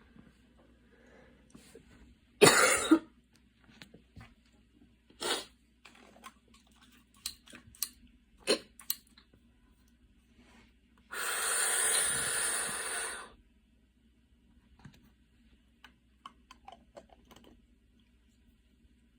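A woman's asthmatic cough: a harsh double cough about two and a half seconds in, then single coughs near five and eight and a half seconds, with small clicks in between. A steady hiss lasts about two seconds near the middle.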